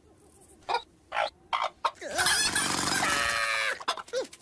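Cartoon hens clucking: a few single clucks, then from about two seconds in a loud chorus of clucking from the whole flock, which stops shortly before the end.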